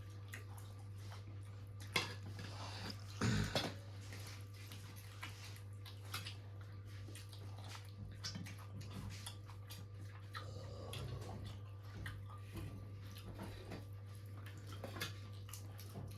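Quiet eating sounds: many small clicks and rustles of fried fish being picked at and chewed, with a couple of louder handling noises a few seconds in, over a steady low hum.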